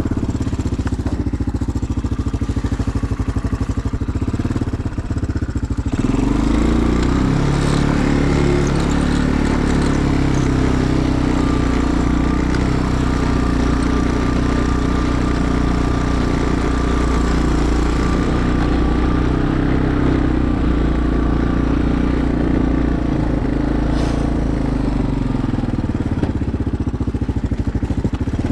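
Small engine running steadily; about six seconds in its note shifts, as with a change in throttle or load, and then holds.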